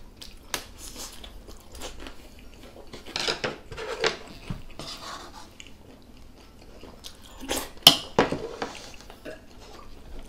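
Mukbang eating sounds: chewing and slurping of Chapagetti black-bean noodles and fried gyoza dumplings, with chopsticks and a wooden spoon clicking against the pan and bowls. A sharp click stands out about eight seconds in.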